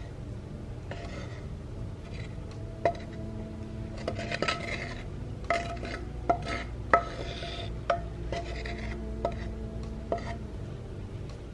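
A spatula scraping cooked ground meat out of a frying pan into a glass bowl, with about seven sharp taps of the pan or spatula against the rim.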